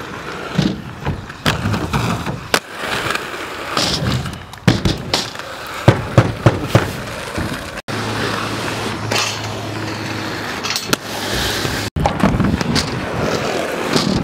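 Inline skate wheels rolling over concrete and wooden skatepark ramps, with sharp clacks and knocks from landings and grinds on boxes and ledges, most frequent in the middle. The sound is broken by hard edits between clips.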